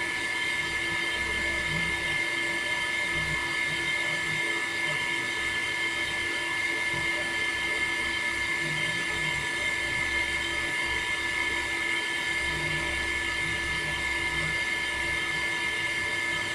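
Electric water pump motor running steadily, with a constant high whine of several fixed tones over an uneven low hum.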